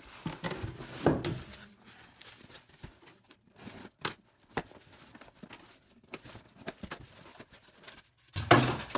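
Cardboard shipping box being opened by hand: packaging tearing and cardboard rustling and scraping in short, irregular bursts, with a louder stretch near the end.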